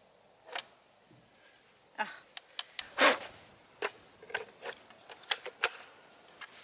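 Irregular knocks and clicks of framing lumber and studs being handled and set in place, about a dozen in all, the loudest a heavier knock about three seconds in.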